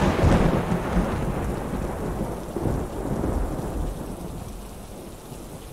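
Stock thunder sound effect over rain: a thunderclap that breaks just before rolls on as a deep rumble and slowly dies away, with steady rain hissing underneath.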